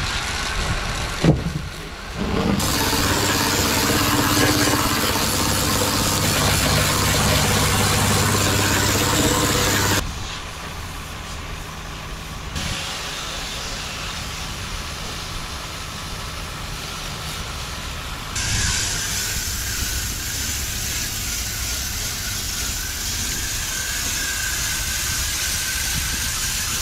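Pressure washer running, its motor humming steadily under the hiss of the water jet blasting dirt off an inflatable dinghy's hull. The sound changes in tone about ten seconds in and again near two-thirds of the way through.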